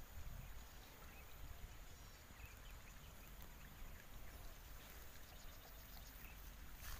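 Faint open-air ambience: a low rumble of wind on the microphone, with a few scattered faint high chirps and a brief click near the end.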